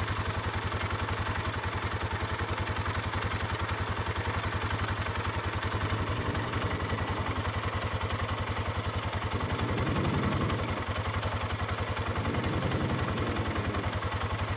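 An engine idling steadily, with an even, rapid pulse that does not change.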